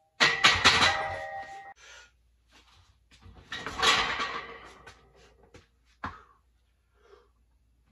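Loaded barbell and iron weight plates clanking in a steel power rack during squats: a sudden clank with metallic ringing just after the start, a second burst of clatter about four seconds in, and a short knock about six seconds in.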